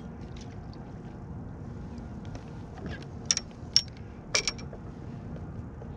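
Rod-and-reel handling as a small fish is reeled in and swung aboard a kayak: a steady low rumble, with a few sharp clicks and knocks between about three and four and a half seconds in.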